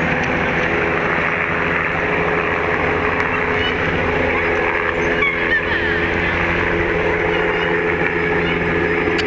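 Helicopter in flight just after take-off: steady rotor and engine noise with a constant hum.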